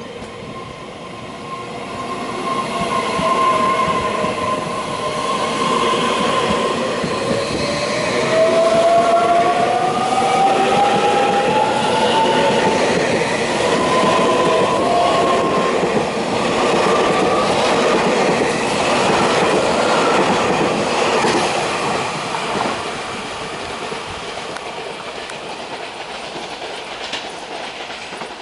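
Taiwan Railways EMU3000 electric train running on the rails, with a motor whine rising in pitch for several seconds as it gathers speed, over wheel and track noise. It grows louder over the first few seconds, stays loud through the middle and eases off near the end.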